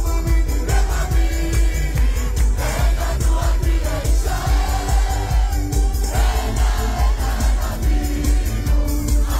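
Live amplified Israeli Mizrahi pop music with a heavy steady bass beat and a lead vocal, with a crowd singing along.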